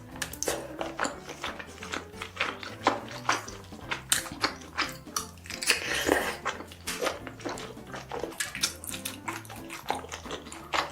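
Close-miked eating sounds: wet chewing and lip-smacking in a dense run of sharp clicks, with a few utensil clicks, over soft background music.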